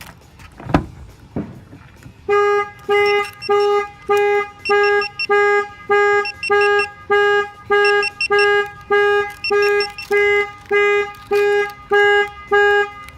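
A knock about a second in, then the van's horn honking in even pulses, about two a second, as the Clifford 3305 alarm goes off after a door is opened. The honking stops shortly before the end.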